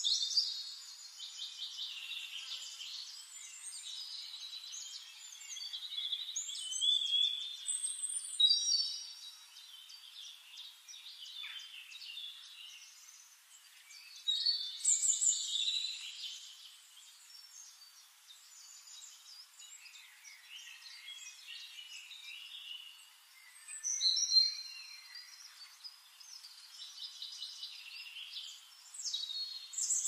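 Songbirds singing: a run of high chirps and quick trilled phrases, with several louder bursts about a quarter of the way in, around halfway and near the end.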